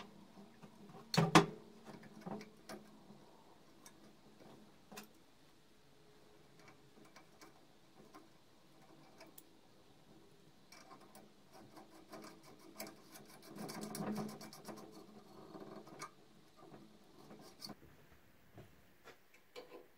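Small metal clicks, taps and rubbing from hands working a brass lamp holder onto a metal tube, with a sharper knock about a second in and a run of quick ticks about two-thirds of the way through.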